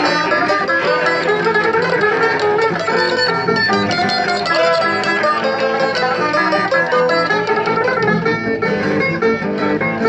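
Live acoustic string band playing an upbeat tune: banjo, acoustic guitar and a small mandolin-type instrument plucking a quick, busy run of notes through small PA speakers.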